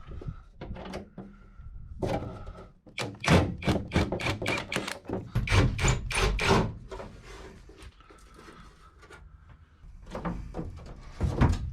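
Knocks and clunks from work removing a van's plywood lining: a quick run of knocks a few times a second, a quieter spell, then a few more knocks near the end.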